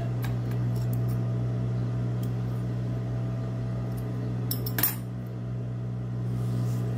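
Industrial sewing machine's motor humming steadily while the machine is not stitching. A few light metallic clicks come early, and a quick cluster of sharp clicks, scissors snipping thread, comes near five seconds in.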